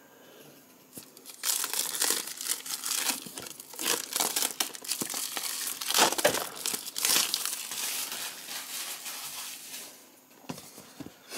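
Plastic shrink-wrap being torn and peeled off a cardboard figure box, crinkling and crackling unevenly. It starts about a second in and dies away near the end.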